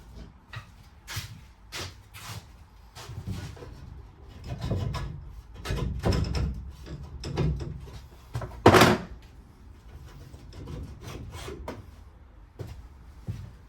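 Wooden wall-lining boards being worked loose and taken down: an irregular run of wooden knocks and clatter, with one loud bang about nine seconds in.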